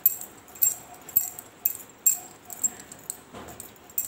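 Bangles on both wrists clinking and jingling about twice a second as the hands roll dough back and forth on a table.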